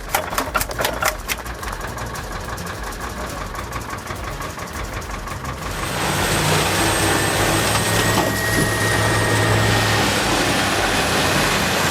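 Wood chipper running with a rapid, even rattle of clicks. About six seconds in, a louder steady heavy engine-driven machine takes over, with a low hum.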